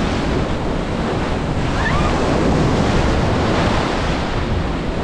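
Ocean surf washing up onto a sandy beach in a steady rush, with wind buffeting the microphone.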